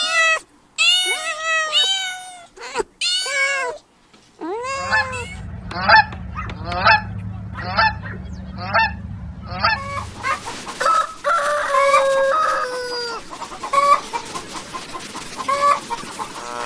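Domestic fowl calling: a string of short, repeated honking calls, in three stretches that change character about four and a half seconds and ten seconds in.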